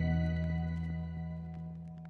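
Background music of long held notes, fading steadily away.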